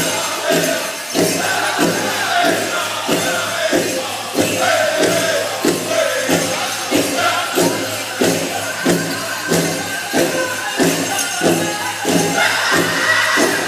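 Powwow drum group singing a chicken dance song over a big drum beaten in a steady pulse of about two and a half strokes a second, with the jingling of dancers' bells and crowd noise. The singing climbs higher about twelve seconds in.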